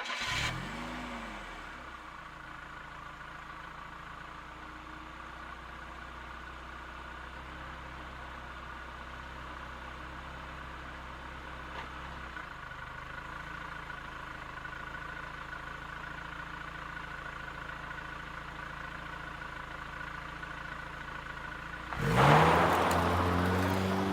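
Car engine catching with a brief rev that rises and falls in the first second, then idling steadily, its idle note changing slightly about halfway through. Near the end the engine revs up sharply and loudly, rising in pitch.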